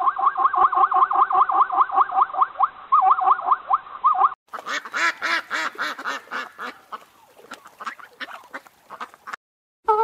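Plains zebras calling in a fast, even run of yelping barks, about five a second, for about four seconds. Then a Canada goose honks in a looser series of calls that grows fainter and stops shortly before the end.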